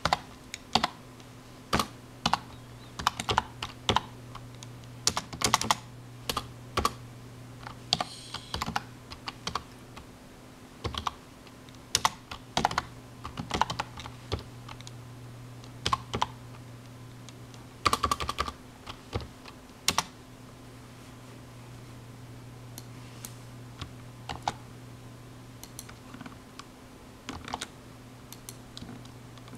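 Typing on a computer keyboard: irregular key clicks in quick runs, thinning out and growing fainter after about twenty seconds. A steady low hum runs underneath.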